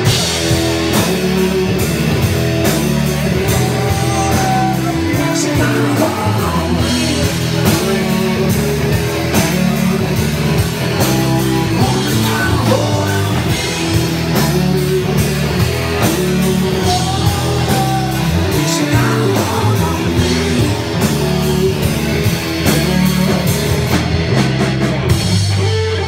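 Live rock band playing: electric guitars, bass and drum kit with a man singing.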